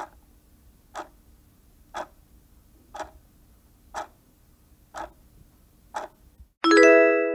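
Clock-style ticking from a countdown timer, one tick a second, seven times, counting down the answer time. Near the end a loud chime of several tones rings out and fades, marking time up.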